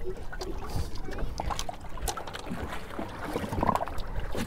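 Wind and water noise on a small boat rocking in chop, with scattered light knocks and clicks from handling gear around the open fish box.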